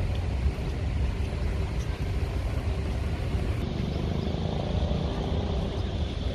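Steady low rumble of outdoor city ambience, with wind buffeting the microphone.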